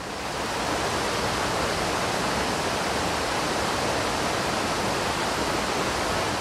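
Mountain creek rushing over rocks and small cascades, a steady rush of water that swells up over the first second.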